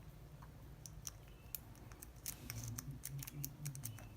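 Faint, scattered small metallic clicks and scrapes of a hook pick and tension wrench working the pins of a Wilson Bohannon padlock, the ticks coming thickest from about a second in.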